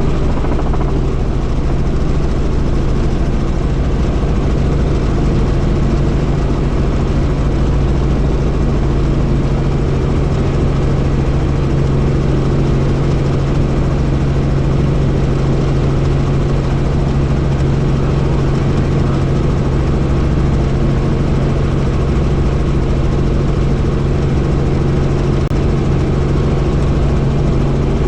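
Helicopter in flight: a loud, steady drone of engine and rotors with a constant low hum that holds unchanged throughout.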